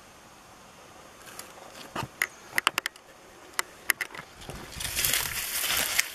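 Dry grass and dead leaves crackling and rustling: scattered sharp snaps at first, then, about four seconds in, a denser and louder rustling as the grass clump is brushed through.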